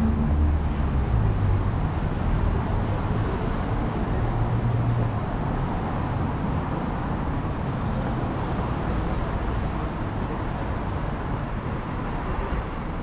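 Urban street ambience with steady road traffic noise; a vehicle's engine passes close by in the first few seconds, then the traffic sound settles lower.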